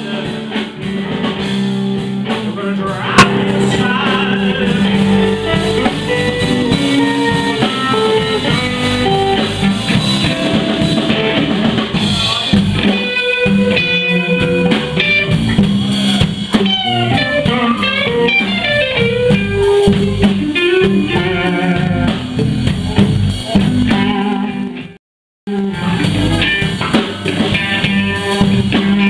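Live blues band playing: an electric guitar plays lead lines with string bends over a drum kit, with no singing. The sound cuts out completely for about half a second near the end, then comes back.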